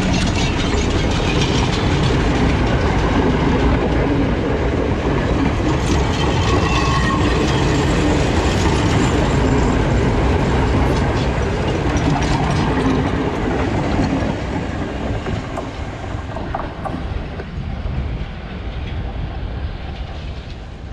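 Passenger train carriages rolling past at close range, wheels clattering on the rails. The sound fades after about fourteen seconds as the last carriages go by.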